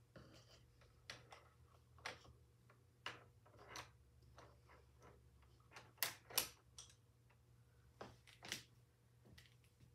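Faint, irregular clicks and small knocks, a dozen or so, with a louder pair about six seconds in and another pair near the end, over a low steady hum.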